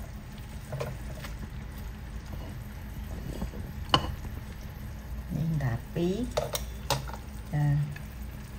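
Metal tongs clicking against a plate and wok while pieces of braised pork tongue are lifted out, over the low sizzle of the sauce in the pan. One sharp click about four seconds in is the loudest.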